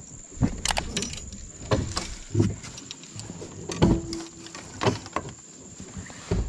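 Scattered knocks and clunks of gear and feet against the aluminium hull of a small boat as a man shifts on his seat and rummages among tackle boxes.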